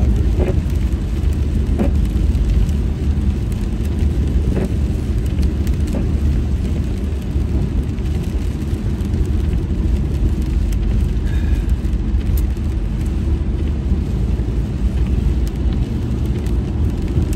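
Steady low rumble of a car's tyres and engine on a wet freeway, heard from inside the cabin, with a few faint clicks now and then.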